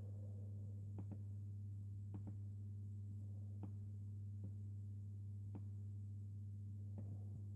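Steady low electrical-sounding hum, with a few faint, short clicks scattered through it.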